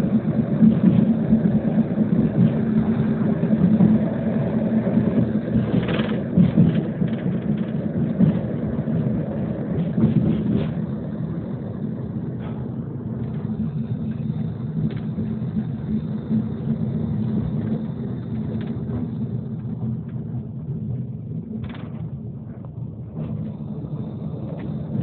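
Tram running along its route, heard from inside the car: a steady low rumble of wheels on rails, with a few sharp knocks along the way. It grows somewhat quieter in the second half.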